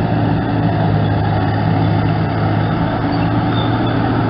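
Hetzer-type tracked tank destroyer driving past, its engine running at a steady pitch with a light rattle of tracks.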